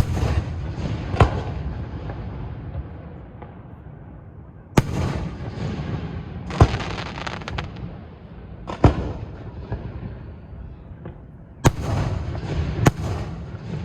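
Aerial fireworks bursting overhead: about seven sharp bangs spread a second or two apart, each trailing off in a rumbling echo, with crackling after several of the bursts.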